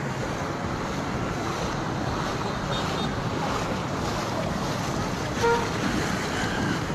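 Steady rush of water, with wind noise on the microphone. A brief faint tone sounds about five and a half seconds in.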